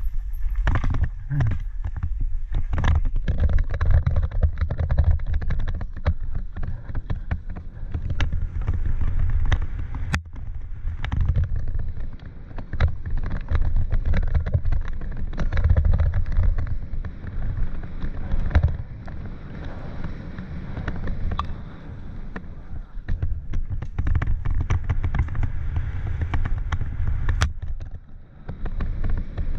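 Mountain bike ridden fast down a dirt singletrack, heard from a helmet-mounted camera: wind buffeting the microphone as a low rumble, with tyres on dirt and the bike rattling and clacking over bumps. It eases briefly near the end.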